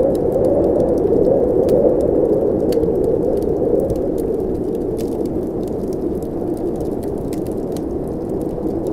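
Blizzard wind blowing steadily as a low rushing noise, a little stronger in the first few seconds, with the scattered small pops and crackles of a wood fire over it.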